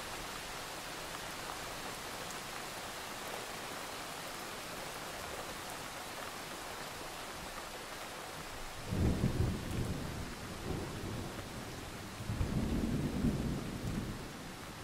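A steady hiss with two low rumbles, the first about nine seconds in and the second about twelve seconds in, each lasting one to two seconds.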